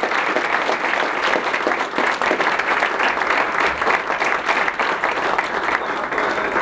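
Audience applauding: many hands clapping steadily for an award handed over.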